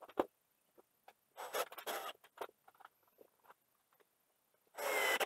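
Cordless drill driving screws to fix a metal draw latch to a wooden box lid: a short run about a second and a half in and another with a steady motor whine near the end, with light clicks and taps of the latch and screws being handled in between.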